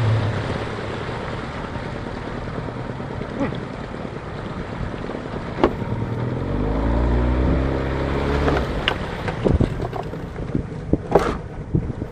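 Johnson 40 hp two-cylinder two-stroke outboard throttled back and idling unevenly, its pitch shifting for a couple of seconds about halfway through, with a few sharp knocks near the end. It doesn't idle great; the lower cylinder has less compression.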